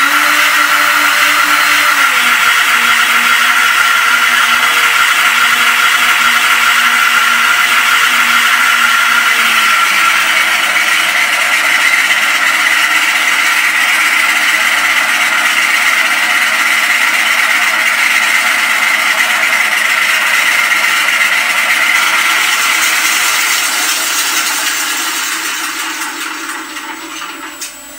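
Simulated Wright Cyclone radial engine sound from a MrRCsound Aspire sound system in a radio-controlled B-17G model, running steadily. The engine note drops a step about two seconds in and again about ten seconds in, then dies away near the end.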